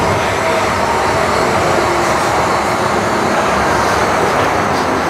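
Steady running noise inside the passenger cabin of a Siemens-Duewag U2 light rail car, rolling along the track at speed.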